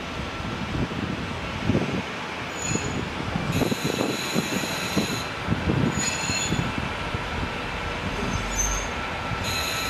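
JR KiHa 40-series diesel railcar on the station track. The wheels clatter with irregular knocks over the rail joints and points. High-pitched wheel or brake squeals come in short bursts about four seconds in, again around six seconds, and near the end.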